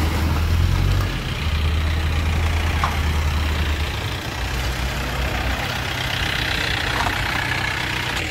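Heavy diesel engine idling close by, a steady low drone that weakens after about four seconds.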